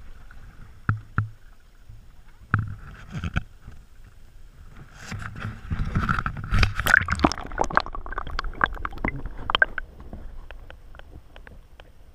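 Water lapping and sloshing around a small boat, with scattered knocks and clatter that come thickest from about five to ten seconds in.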